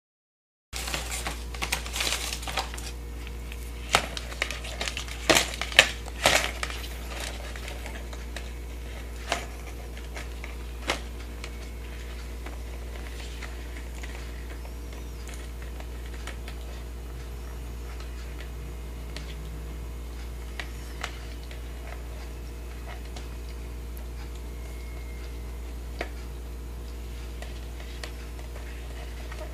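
A crab picking at and eating potato chips: sharp clicks and crackles come thick and fast for the first six seconds or so, then only now and then. A steady low hum sits under it.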